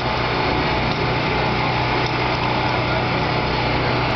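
Motor-driven sugar cane juice press running steadily with an even, unchanging drone, with street chatter behind it.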